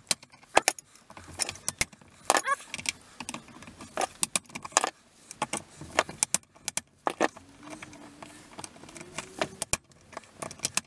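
Hammer blows on a hand impact driver loosening screws on an old chainsaw: a string of sharp metallic knocks and clinks at irregular intervals.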